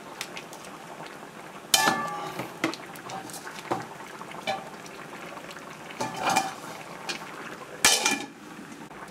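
Curry simmering gently in a pan, with several clinks and knocks of a ladle against the pan, and a louder clang near the end as the stainless steel lid is set back on the pan.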